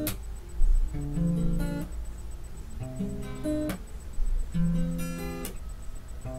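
Acoustic guitar playing a song's intro: chords strummed and left to ring, a new chord every second and a half to two seconds. There is a low thump about half a second in.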